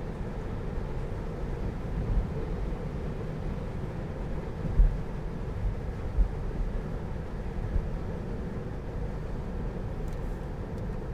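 Road noise inside a Tesla Model 3's cabin, with no engine sound: tyres rolling on a wet road make a steady low rumble. A few short low thumps come from bumps in the road surface.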